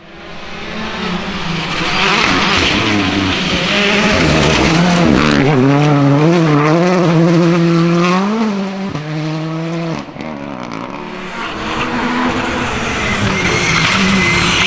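Rally car engines at full throttle on a gravel stage, the revs wavering up and down through gearchanges, climbing to a peak and dropping sharply a little past halfway. Near the end the engine and tyre noise of the next car builds as it approaches.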